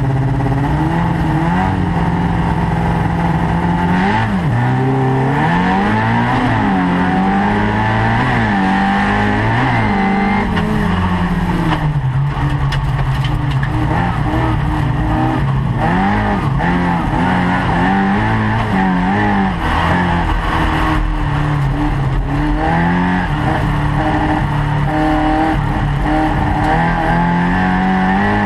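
Folk-race car's engine, heard from inside the car. It holds a steady rev for the first few seconds, then rises and falls again and again as the car accelerates on a gravel track and lifts off for corners. A few short clatters come about halfway through.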